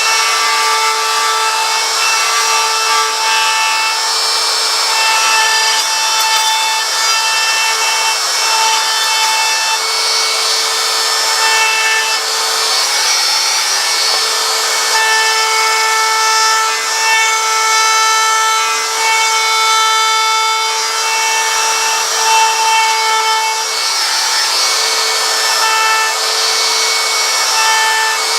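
Handheld electric router running steadily at high speed, its bit cutting a wide groove around the lettering of a wooden sign, with a steady motor whine over the noise of the wood being cut.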